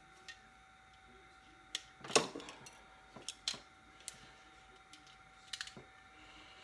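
Scattered clicks and knocks of hand tools and electrical wire being handled, the loudest about two seconds in, over a faint steady whine that stops near the end.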